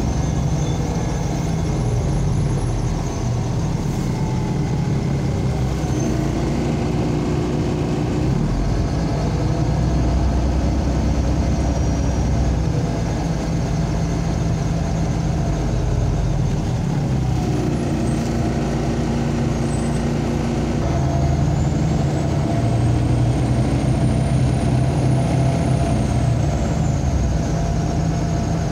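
Engine and road noise of a MAZ-203 city bus heard from inside the passenger cabin while it drives, a steady hum with the engine note shifting a couple of times.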